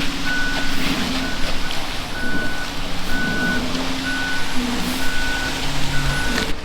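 Concrete mixer truck's diesel engine running with its backup alarm beeping steadily, one even-pitched beep about every second.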